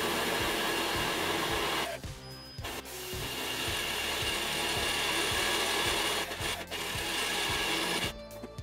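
Handheld electric drill boring a 10 mm hole through a wide metal nut, the motor running steadily as the bit cuts into the metal. It pauses for about a second about two seconds in, starts again, and stops just before the end.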